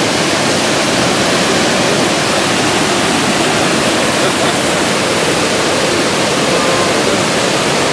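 Water pouring over a dam spillway and churning in the pool below: a loud, steady rush.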